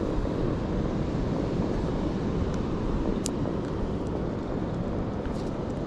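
Wind buffeting the microphone: a steady low rush, with a brief faint click about three seconds in.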